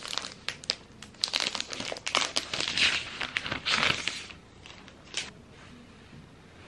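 Packaging crinkling and rustling with sharp crackles as a new MacBook laptop is unwrapped, for about four seconds, followed by a single click about five seconds in.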